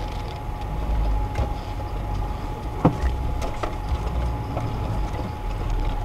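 4x4 off-road vehicle driving along a rough forest track, its engine and running gear giving a steady low rumble, with body rattles and a sharp knock about three seconds in.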